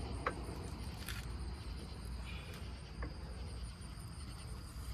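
Crickets chirping steadily in the background under a low rumble, with two light clicks, one just after the start and one about three seconds in.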